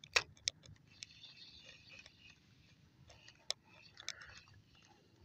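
Spinning reel being cranked to retrieve a cast lure: a faint whir with scattered sharp clicks and ticks, the loudest just after the start and about three and a half seconds in.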